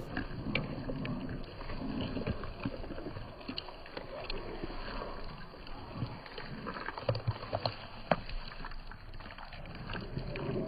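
German Shepherd puppy chewing raw goat neck: irregular wet chewing with sharp clicks and crunches of meat and bone.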